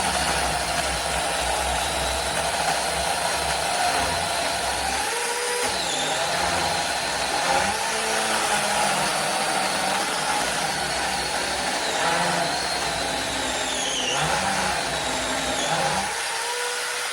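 Samyoung 26-volt mini cordless electric chainsaw cutting continuously through a thick piece of wood about four inches across. The motor and chain whine dips in pitch several times as the saw bogs under load and is worked around the cut, then picks back up.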